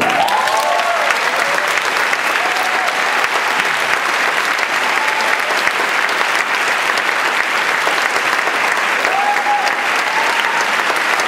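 Audience applauding steadily, with a few short cheers and whoops rising above the clapping now and then.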